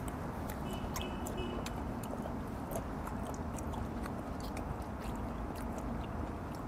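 A man chewing a mouthful of raw fish sashimi with his mouth closed: faint, irregular wet clicks and smacks over a steady low background hum.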